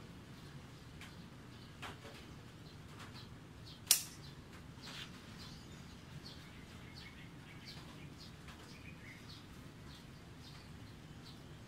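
Faint, short bird chirps scattered throughout over a low steady hum, with one loud sharp click about four seconds in and a smaller click just before two seconds.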